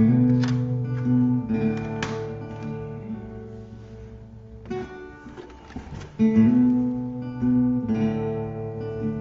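Recorded acoustic guitar music playing, strummed chords struck every second or two and left to ring.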